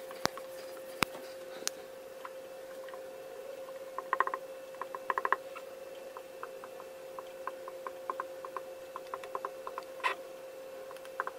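Dry-erase marker squeaking and tapping on a whiteboard in many short strokes, heaviest from about four seconds in, after a few sharp taps at the start. A faint steady hum runs underneath.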